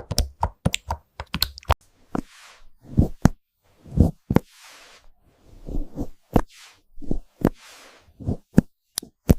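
Keyboard typing sounds, AI-generated: irregular key strokes, a quick run of clicks at first, then slower single strokes, some with a deeper thump. Soft hissing swishes fall between some strokes.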